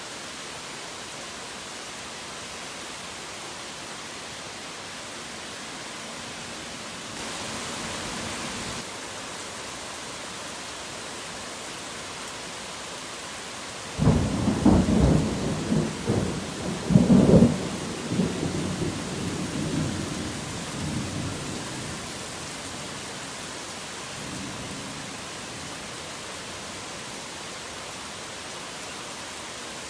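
Steady heavy rain hiss. About halfway through a thunderclap breaks in suddenly, a loud crack followed by rolling rumbles for several seconds that die away, with a faint distant rumble after it.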